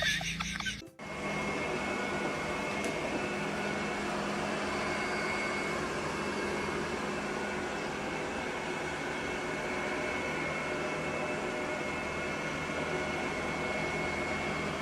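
Steady machine-like whirring hum with a faint high whine, starting about a second in after a short gap.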